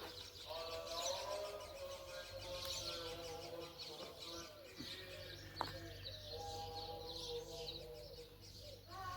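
Small birds chirping and twittering steadily, over a backdrop of soft, sustained tones.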